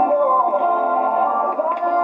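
Music with a melody over guitar accompaniment.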